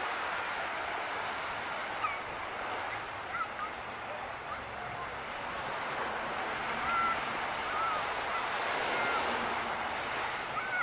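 Small waves washing up on a sandy beach: a steady rush of surf that swells a little about two-thirds of the way through.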